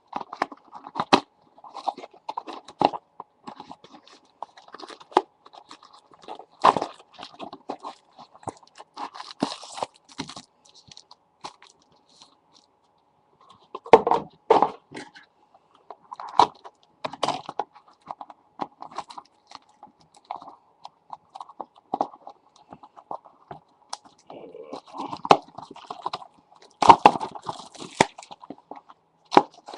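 Trading-card packs being cut and pried out of their stiff packaging with a dull knife: irregular crackling, scraping and crinkling, with a pause of a second or two around the middle.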